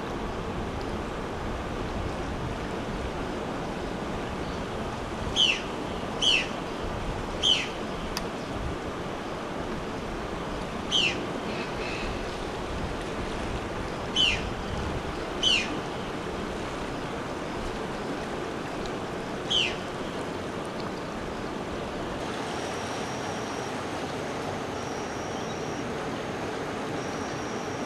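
River water rushing steadily over rocks. Seven short, sharp chirps falling in pitch break in between about five and twenty seconds in, and near the end a high, steady note repeats every two seconds or so.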